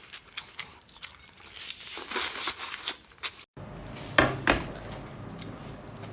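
Close-up crinkling and tearing with scattered small clicks, the sound of food or its wrapping being pulled apart by hand. About three and a half seconds in, the sound cuts off abruptly and gives way to a steady low hum with two sharp clicks.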